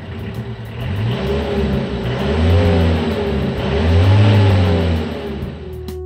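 Engine sound effect of a truck revving, swelling up and falling back twice over a steady running note.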